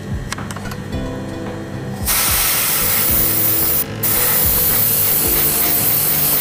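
Airbrush spraying paint: a steady hiss of air and paint that starts about two seconds in, breaks off for a moment near the four-second mark, then resumes and cuts off suddenly.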